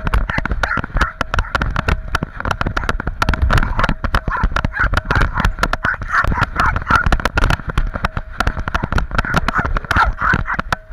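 Action camera on a dog's back harness, rattling and knocking in quick irregular succession as the dog moves.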